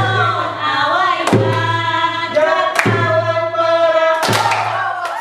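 Music: a group of voices singing in chant-like held notes over a heavy beat that lands about every one and a half seconds, each beat carrying a low sustained tone.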